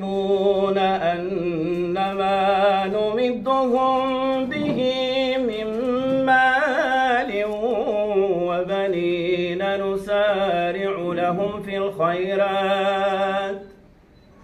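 A man's solo, unaccompanied religious chant, one voice drawing out long, ornamented notes that bend up and down. It stops near the end.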